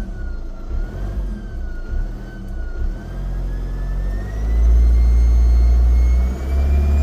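VW Golf Mk6 TDI diesel running with a loud turbo whistle, a thin high whine that climbs slowly in pitch as the engine pulls; the engine gets much louder about four and a half seconds in. The whistle comes from a boost leak, and the owner says the car is not supposed to sound like this.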